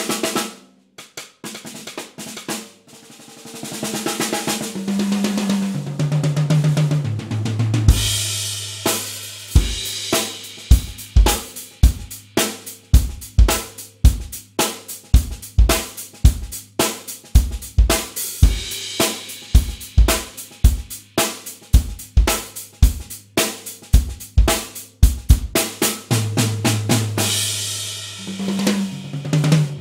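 Groove Drum Co. shallow 'pancake' drum kit with a 20x6" bass drum, 10x5", 12x6" and 14x7" toms and a 13x4" snare, played with sticks. A tom fill steps down in pitch across the toms, then from about eight seconds in a steady groove of bass drum, snare and cymbals, closing with another tom fill stepping down in pitch.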